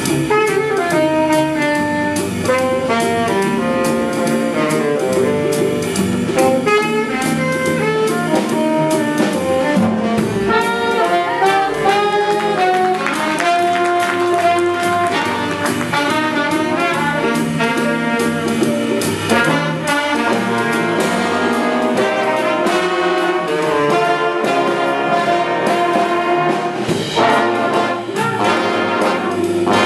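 Youth jazz big band playing a bebop tune, with the saxophone section and the trumpets and trombones playing ensemble lines over double bass.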